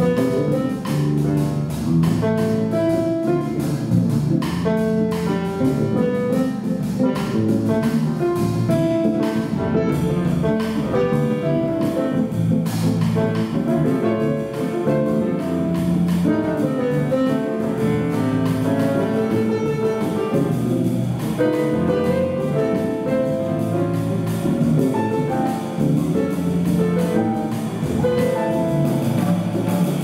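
A small jazz group playing live: acoustic guitar notes over a drum kit and a moving bass line, in a steady, continuous groove.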